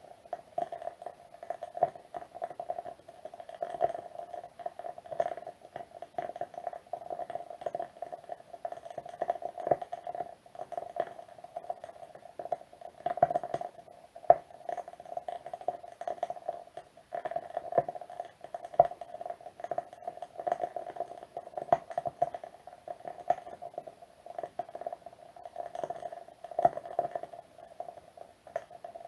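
Wood wick candle crackling as its wooden wick burns: a continuous run of small pops and snaps, several a second, with now and then a louder pop.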